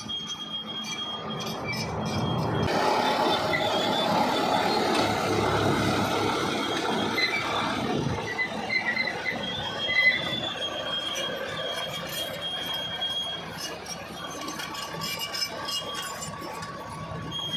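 BEMI D80-A12 crawler bulldozer working gravel, its engine running under a loud metallic squeal from the tracks and running gear. It is loudest through the first half, with a sharp peak about ten seconds in.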